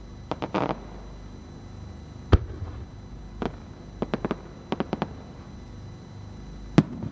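Aerial firework shells bursting overhead. The sharp reports are irregular: a loud one about two seconds in and another near the end, with quick clusters of smaller pops between them.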